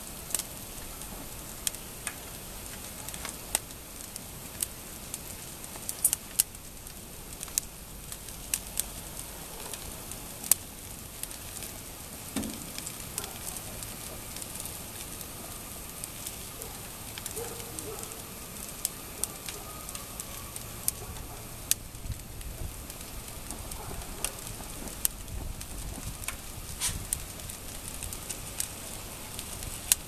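Paper diploma burning on a grill grate: fire crackling with scattered, irregular sharp pops over a steady hiss.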